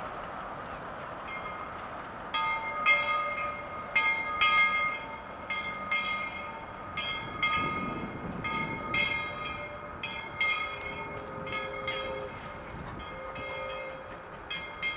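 A two-foot-gauge Baldwin steam train, Edaville #7 with its passenger coaches, rolling by with a steady rumble. From about two seconds in, high-pitched squealing tones come and go in short, irregular bursts.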